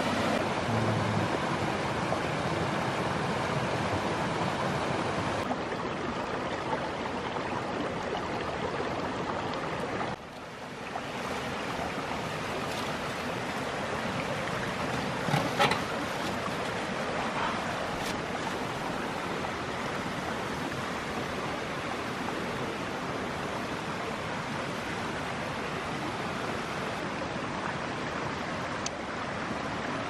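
A mountain stream rushing over small rocky cascades, a steady even rush of water. A few sharp clicks sound about halfway through.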